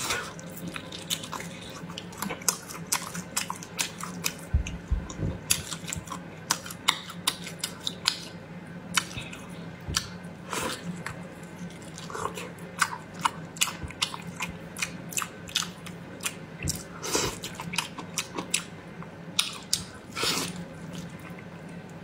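A person biting and chewing braised meat full of tendon, with a quick, uneven run of sharp mouth clicks throughout.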